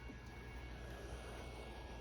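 Faint steady machine hum with a thin high whine, and no distinct events.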